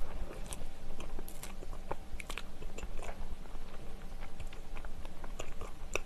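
A bite into a soft brioche roll topped with cream cheese, then close-miked chewing, heard as many small, scattered clicks and ticks.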